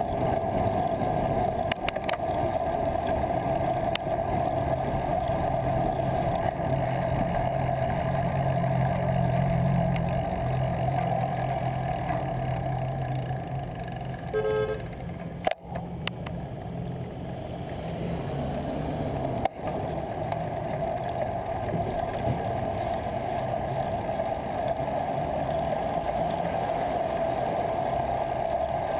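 Steady wind and road noise from riding a bicycle through city traffic, picked up by a GoPro mounted on the bike, over the low rumble of vehicle engines. A short car horn toot sounds about halfway through, followed by two sharp knocks a few seconds apart.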